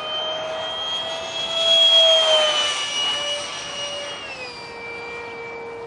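Whine of a 70mm electric ducted fan on a foam RC jet in flight. It swells to its loudest about two seconds in, then its pitch falls after the peak and drops again in a step about four seconds in.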